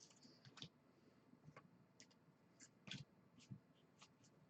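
Faint, scattered clicks and ticks of baseball trading cards being flipped and slid against each other in the hands, about ten light snaps spread irregularly, the sharpest about three seconds in.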